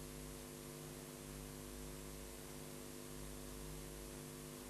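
Steady electrical hum with an even hiss and no programme sound: the audio of the broadcast debate clip has dropped out.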